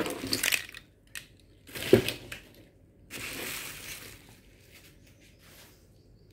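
Handling noise from a cardboard box and a plastic-sheathed wiring harness being lifted and moved, with rustling and crinkling, a sharp knock about two seconds in, and another rustle a second later.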